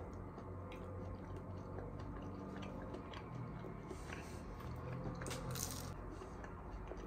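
A person chewing a crisp, buttery minced-meat börek topped with egg: quiet crunching and mouth sounds.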